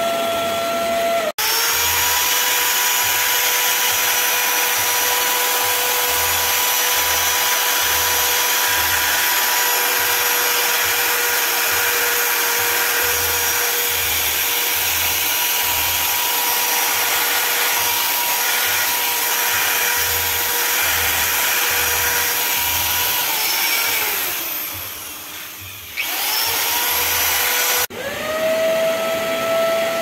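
Corded electric drill with a rotary brush attachment scrubbing a carpet floor mat: a steady motor whine with a low throb that comes and goes in an even rhythm, winding down in pitch near the end. Briefly at the start and again at the end, the Hoover CleanSlate portable carpet cleaner's motor runs, rising in pitch as it starts up.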